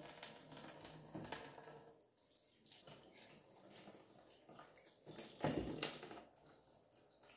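Kitchen tap running into a stainless steel sink while hands rinse and rub a butternut squash and carrots in a plastic colander. The splashing is loudest for about a second, around five seconds in.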